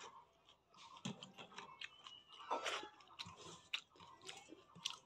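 Close-up chewing of a raw green chilli pepper, with irregular crunchy clicks and wet mouth sounds.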